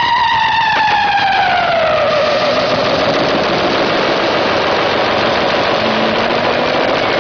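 Loud synthesized soundtrack effect: a siren-like pitched tone glides downward over a dense rushing noise for the first couple of seconds, then the noise carries on with only a faint held tone.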